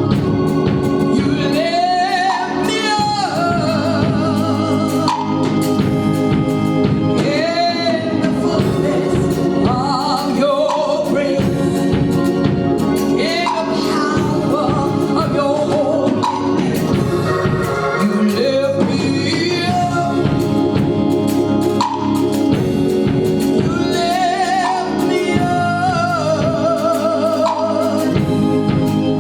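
Gospel music: singing with wide vibrato over sustained instrumental chords, continuous throughout.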